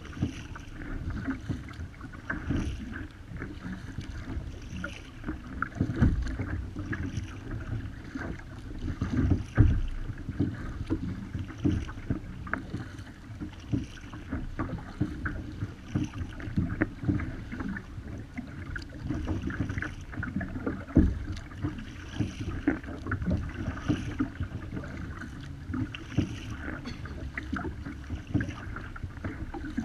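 Paddle strokes splashing and water slapping against the hull of a Wilderness Systems Ride 135 sit-on-top fishing kayak moving through choppy water. Wind rumbles on the microphone in a few stronger gusts.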